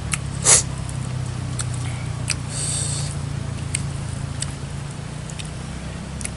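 A person eating close to the microphone: chewing and mouth clicks, a sharp smack about half a second in, and a short hissy slurp a little after two seconds, over a steady low hum.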